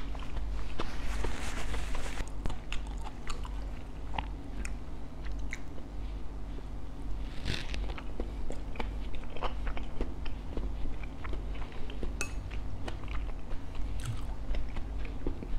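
Close-up chewing and crunching of crispy pan-fried bánh khọt (small Vietnamese rice-flour pancakes with meat filling), with wet mouth clicks between bites. A dense crunch comes about a second in and another sharp crunch about halfway through, over a steady low hum.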